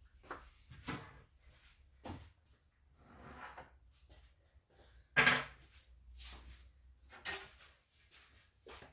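A series of wooden knocks, bumps and short scrapes, like boards and tools being handled and set down, with one louder sharp knock about five seconds in.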